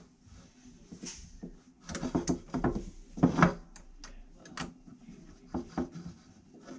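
Irregular clicks, knocks and rubbing as a hex key turns bolts into a black plastic ice-shuttle handle that is handled on a wooden workbench. The loudest clatter comes about two to three and a half seconds in, with a few lighter clicks after it.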